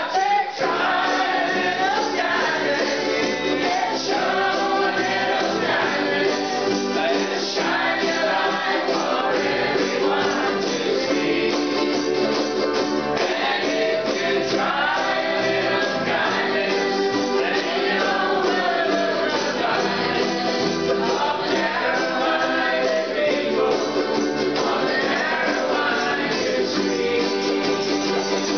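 A group of ukuleles strummed together while a roomful of people sing along in unison, steady and unbroken throughout.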